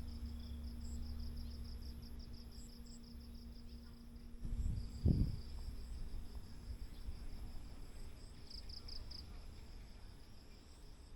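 Insects chirping in a steady, rapid high-pitched pulse, over a low rumble, with two short dull thumps about five seconds in.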